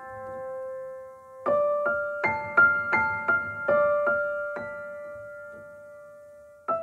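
Slow background piano music: single notes struck about a second apart and left to ring out, fading away near the end.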